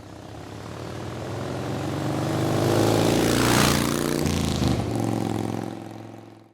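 Motorcycle engine running under way, growing louder to a peak a little past the middle, its pitch dropping about four seconds in, then fading out.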